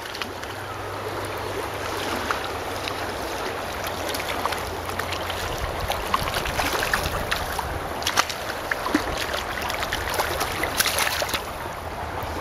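Shallow stream riffle running steadily, with many small splashes and knocks scattered through it.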